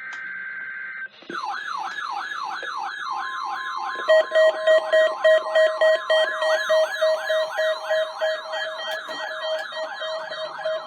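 The tail of a NOAA Weather Radio SAME data burst, then several weather radio receivers alarming together. One gives a siren-like falling sweep about three times a second; a steady alarm tone joins about three seconds in, and a rapid loud beeping about four seconds in. The receivers are set off by the station's weekly test of the warning alarm.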